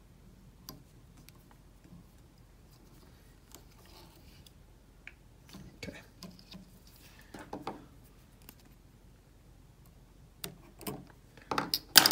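Faint handling noises of thread and bobbin at a jig in a fly-tying vise, with a few sharp clicks near the end.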